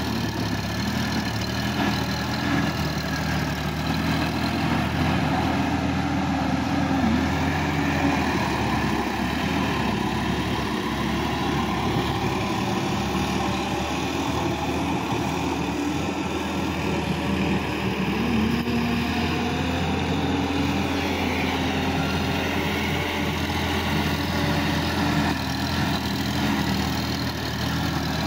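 Sonalika DI-50 RX tractor's diesel engine running steadily as it pulls a rotary tiller through a flooded paddy field, its pitch rising and falling slightly a few times.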